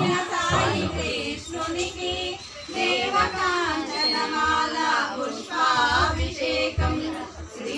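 Women's and children's voices singing a devotional song together.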